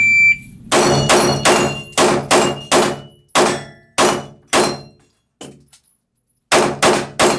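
An electronic shot timer gives one short beep, then a 9mm pistol fires in an indoor range, each shot echoing off the walls. There is a quick string of nine shots, a pause of about two seconds, and three more quick shots near the end.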